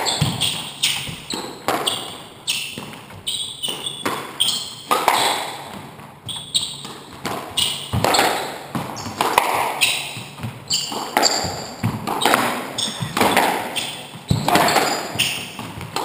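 Squash rally: the ball is struck by the rackets and hits the walls in quick succession, about one or two sharp cracks a second, each echoing around the enclosed court.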